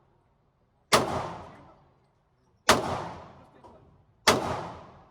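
Three gunshots from a firearm, about a second and a half apart, each sharp crack followed by a ringing tail that dies away over about a second.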